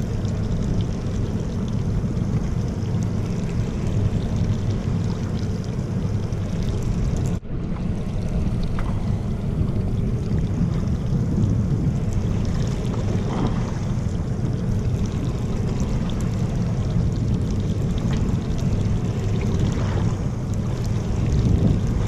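Steady low rumble of wind buffeting the microphone on a fishing boat at sea, with boat and water noise underneath; the sound drops out for an instant about seven seconds in.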